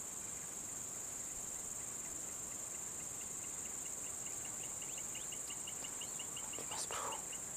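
Steady high-pitched insect drone from the swamp vegetation. From about three seconds in, a rapid series of short chirps runs at roughly four or five a second and grows louder, with a brief rustle near the end.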